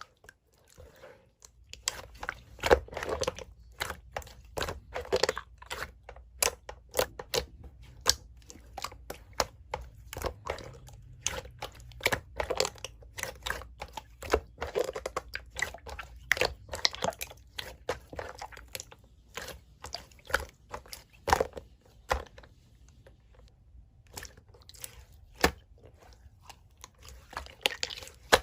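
Hands playing with slime, giving a dense run of sharp crackles, clicks and crunches that thins out for a few seconds before picking up again near the end.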